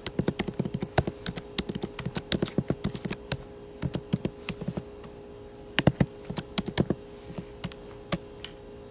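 Typing: quick, irregular taps and clicks in flurries, thinning out over the last few seconds, over a faint steady hum.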